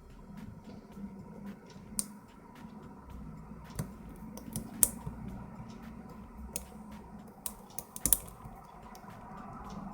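Irregular small metallic clicks and taps of a hook pick working the pins of a 5-pin pin-tumbler lock under light tension during single-pin picking, with the sharpest clicks about five and eight seconds in.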